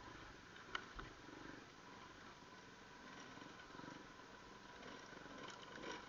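Faint, low rumble of dirt bike engines running at low speed on a trail, with one sharp click about a second in.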